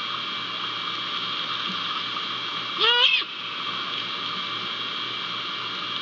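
Great horned owl giving a single short, wavering call about halfway through, over a steady background hiss.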